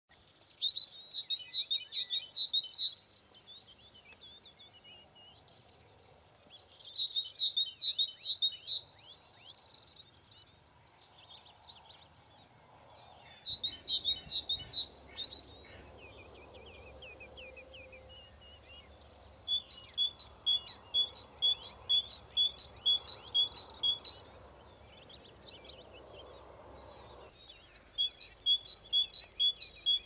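Small songbirds singing: phrases of rapid high notes, each lasting a couple of seconds, separated by short pauses, with a longer run of evenly repeated two-note calls in the second half.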